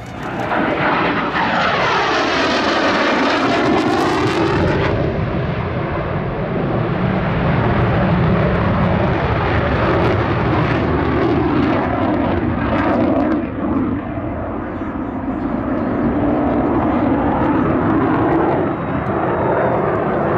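F-16 Fighting Falcon's single jet engine at high power as the fighter flies past: a loud roar that swells in suddenly at the start, with a sweeping, phasing sound over the first few seconds, then holds steady.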